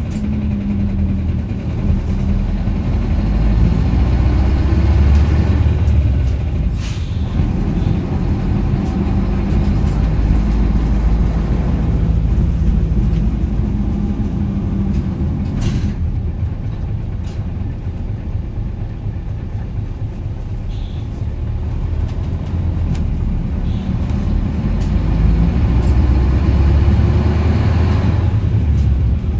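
Isuzu Erga (KL-LV280L1) city bus's V8 diesel engine running under way, heard from inside the bus, its deep engine note swelling and easing as it changes pace. Two brief sharp noises cut through about 7 and 16 seconds in.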